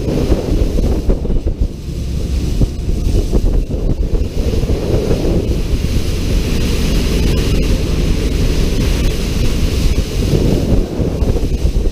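Wind buffeting the camera's microphone on the open upper deck of a motor yacht running at speed, over the rush of water and wake along the hull. The sound is a loud, unsteady rumble.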